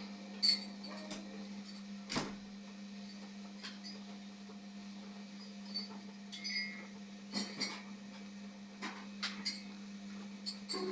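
Scattered clicks and light knocks of household objects being handled, the sharpest about two seconds in, over a steady low hum.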